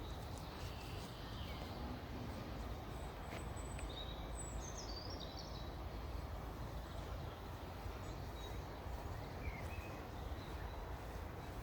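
Park ambience: a steady low rumble with small birds singing over it, a high, twittering phrase about four to five seconds in and a few short chirps near the end.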